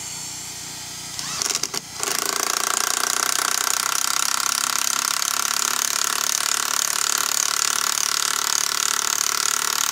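Impact gun driving a lag bolt into a timber stair stringer. It gives a short burst about a second in, then a steady rapid hammering from about two seconds on as the bolt is run in until it snugs up tight.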